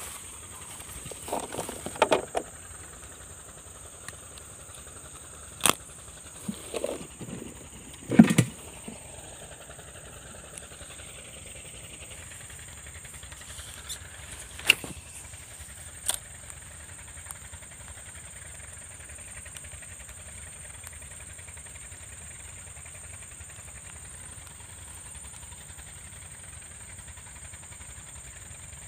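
Steady distant drone of gold-dredging suction-pump engines with a constant high hiss over it. A handful of short knocks and clicks from handling a fishing rod and reel come in the first half, the loudest about eight seconds in.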